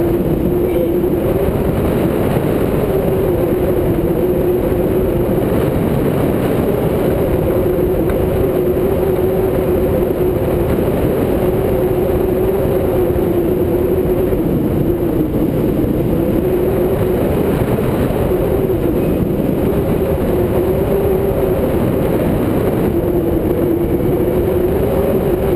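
Loud, steady rush of airflow over a hang glider's wing-mounted camera in flight, with a slightly wavering hum running through it.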